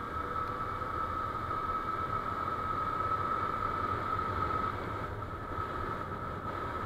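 Yamaha FZ-S V2.0 motorcycle heard while riding at around 60 km/h: its single-cylinder engine running under steady throttle, with wind and road noise and a steady high whine over a low rumble.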